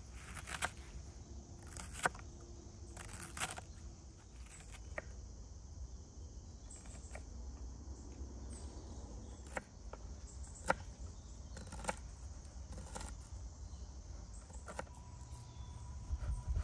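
Kitchen knife cutting vegetables on a wooden cutting board: irregular sharp knocks of the blade against the board, about one every second or so, over a low steady rumble.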